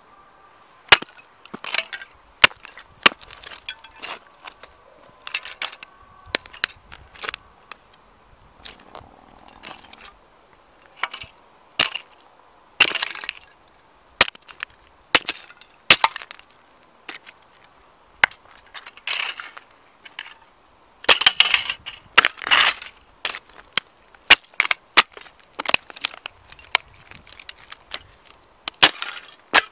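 Hard plastic toy police motorbike cracking, snapping and crunching under heavy boots stamping on it against concrete. The sound is a long series of sharp cracks, with denser bouts of crunching about halfway through and again about two-thirds of the way through.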